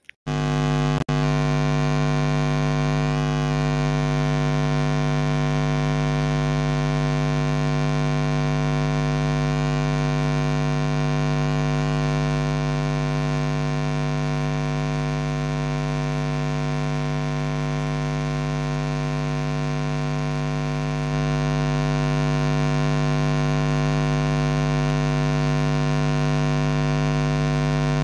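Loud, steady electrical mains hum from a microphone's audio line: a constant buzz made of many evenly spaced tones. It cuts in abruptly, dips for a moment about a second in, and gets slightly louder about three quarters of the way through.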